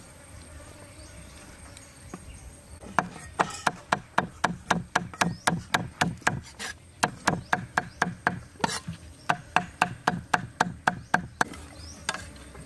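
Knife chopping on a wooden cutting board: a steady run of sharp chops, about four or five a second, starting about three seconds in with a couple of brief pauses.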